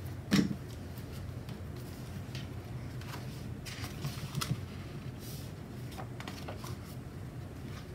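Pages of a sticker book being flipped and rustling, with a few light paper clicks, after a single soft thump just under half a second in.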